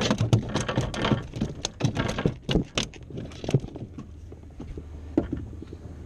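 King mackerel flopping and thrashing on a fiberglass boat deck: a rapid run of slaps and knocks for the first three to four seconds, then only a stray knock or two.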